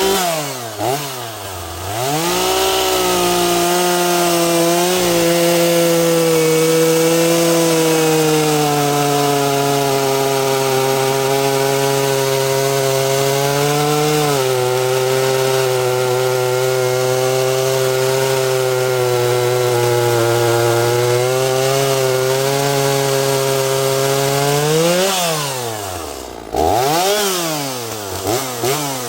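Echo CS-450P 45 cc two-stroke chainsaw revving up, then cutting through a black oak log under steady load for about twenty seconds, its engine pitch held down as the saw is pushed hard into the wood. Near the end it revs free as it comes out of the cut, gives another quick rev, and drops back.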